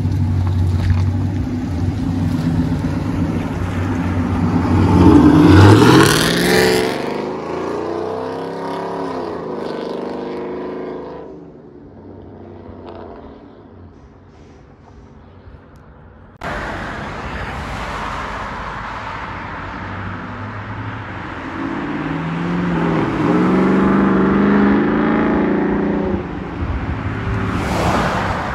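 Chevy Silverado's 6.2-litre V8 through long-tube headers, high-flow cats and a Borla ATAK dual exhaust. The truck pulls away and accelerates hard, its exhaust rising in pitch and at its loudest about five seconds in, then fading as it drives off. After a break, the exhaust builds again as the truck comes back and passes close by near the end.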